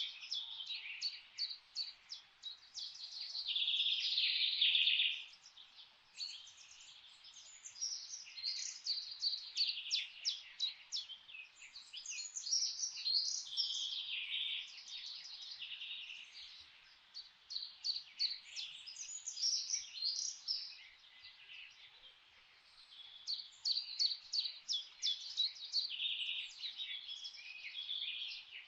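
Several songbirds chirping and singing at once, in rapid trains of high chirps and trills that overlap throughout, over a faint steady hiss.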